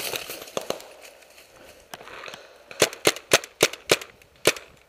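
Paintball marker, a Tippmann A5, firing a quick string of about six sharp pops, roughly three a second, starting about three seconds in. Before that there is quieter rustling of movement through dry leaf litter.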